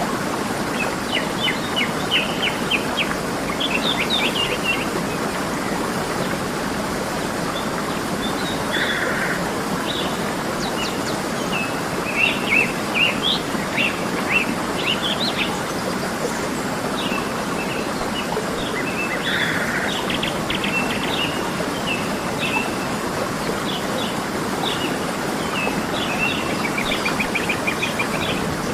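Steady rush of a waterfall or stream, with small birds chirping and trilling in short repeated phrases over it.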